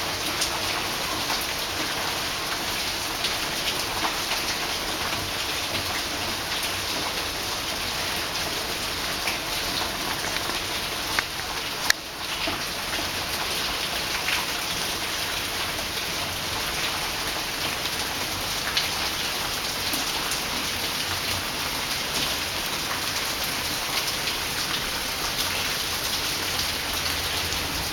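Steady rain falling, with one sharp click about twelve seconds in.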